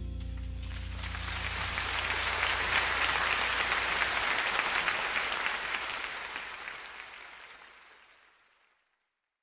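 Live concert audience applauding at the end of a jazz ballad, over the band's last low notes dying away in the first second or so. The applause swells, holds, then is faded out smoothly and stops completely about eight and a half seconds in.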